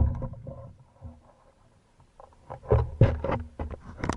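Band-powered speargun fired underwater: a sharp crack at the start, with the shaft and line rattling as it dies away. Later comes a run of loud knocks and clatters from the gun being handled, heard through the camera housing.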